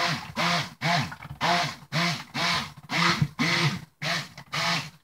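Immersion stick blender run in short pulses about twice a second. Its motor pitch rises and falls with each burst as it churns cold-process soap batter toward emulsification.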